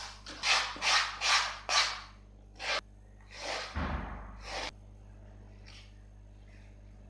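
Scissors cutting corrugated cardboard: four quick snips about a second in and one more a little later, then a longer rustle of the cardboard being handled with a low thud in the middle.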